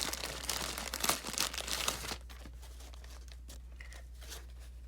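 Packaging crinkling and tearing as a stack of prop bills is pulled out of its wrapping, for about two seconds. After that come a few faint handling clicks.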